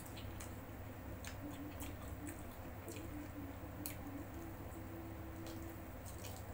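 Close-up eating sounds: a person biting and chewing food with wet, irregular smacking clicks, over a faint low hum.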